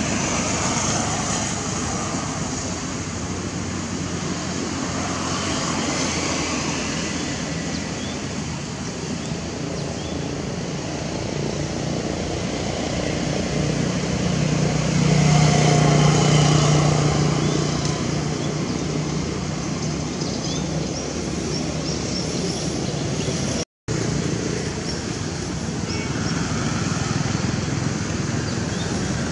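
Steady outdoor background noise with a low motor hum, which swells and fades about halfway through, as of a motor vehicle passing. The sound drops out for an instant near the end at an edit cut.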